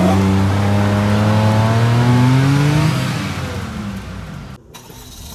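Daihatsu Mira e:S's small 660 cc three-cylinder engine revving under load, its pitch climbing steadily for about three seconds before it fades away. The sound cuts out briefly near the end.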